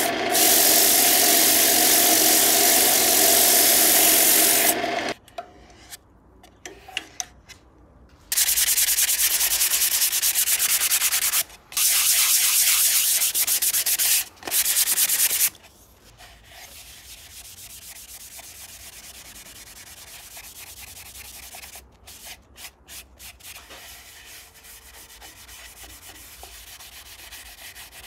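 Sandpaper rubbing against a walnut plate spinning on a wood lathe: a loud, even hiss with a steady hum under it at first. The hiss comes in several stretches that start and stop abruptly, then gives way to a much quieter stretch of low noise with a few light clicks.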